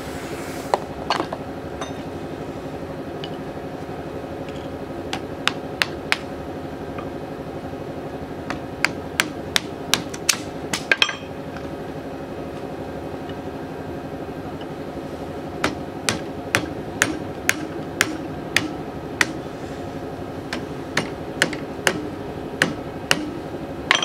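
Hammer blows on a seized car air-conditioning compressor's clutch pulley held in a bench vise, struck to break it free. The sharp metal strikes come in runs, the longest near the end at about two a second, over a steady hum.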